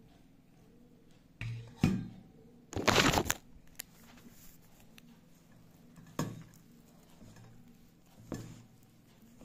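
Handling noise of the recording phone being picked up and moved: a few sharp knocks, and about three seconds in a loud half-second rustle as a cloth sleeve rubs over the microphone. Softer knocks follow as the phone is set back down.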